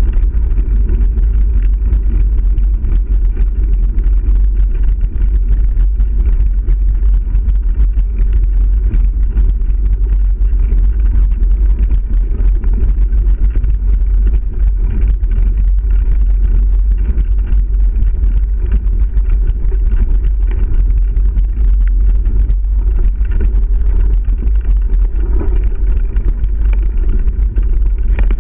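Steady low rumble of wind buffeting the microphone and tyres rolling over a gravel and dirt trail on a moving mountain bike, with many small rattles and clicks from the bike.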